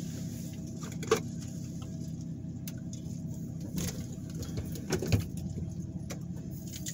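Steady low hum of a stopped car idling, heard from inside the cabin, with a few soft clicks and taps.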